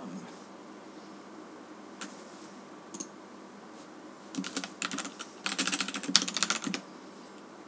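Typing on a computer keyboard: two single key clicks in the first half, then two quick runs of keystrokes a little past halfway.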